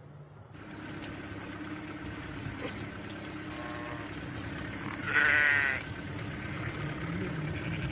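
A flock of sheep, with two wavering bleats, the louder one about five seconds in, over a steady low hum.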